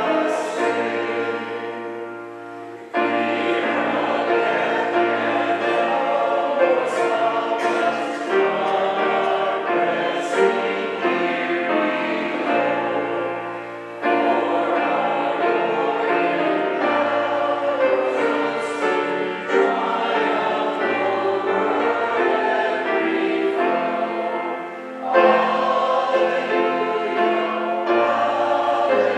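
Congregation and a small group of song leaders singing an Easter hymn with piano accompaniment, in sung lines with short breaths between phrases.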